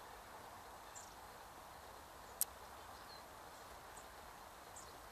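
Faint, steady outdoor background noise with a few brief, faint high bird chirps and one sharp click about two and a half seconds in.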